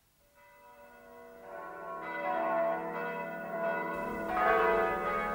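Church bells ringing, fading in from silence. Several overlapping bell tones ring on and swell again with new strokes about two seconds and four and a half seconds in.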